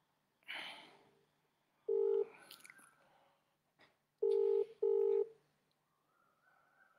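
Telephone ringback tone heard over the phone while an outgoing call rings: a steady low tone in the Australian double-ring pattern, two short pulses close together, repeating every few seconds. A single pulse comes about two seconds in and a pair at about four and five seconds, after a short rush of noise about half a second in.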